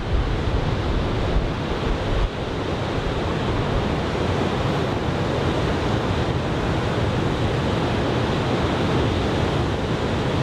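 Large typhoon-swell surf breaking, a steady rush of wash and whitewater, with wind buffeting the microphone.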